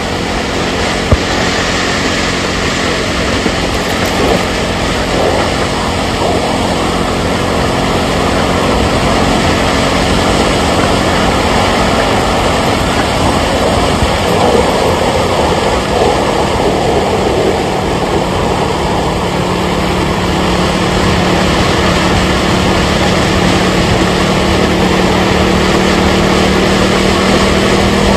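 A vehicle on the move: steady engine hum under a loud, even road noise.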